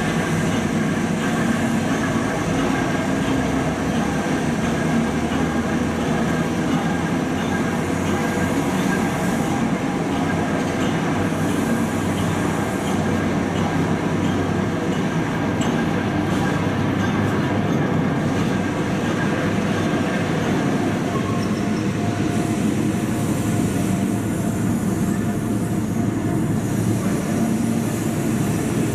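Diesel locomotive running steadily, a continuous engine rumble with a low hum.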